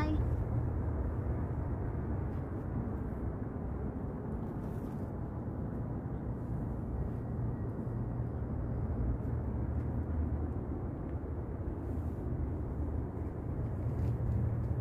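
Wind buffeting the phone's microphone: a steady low rumble that holds even throughout, with no distinct events.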